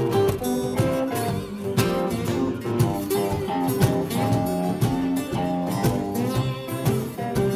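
Acoustic guitars playing an instrumental blues passage over a steady cajon beat.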